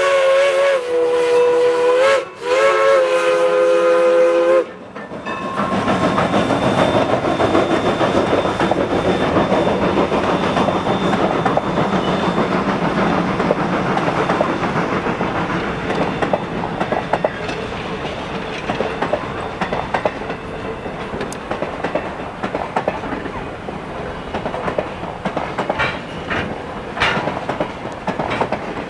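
PRR three-chime steam whistle sounding a chord in two long blasts, each sagging slightly in pitch as it opens and closes. It cuts off about four and a half seconds in, and a train rolls past with its wheels clicking over the rail joints, easing off a little toward the end.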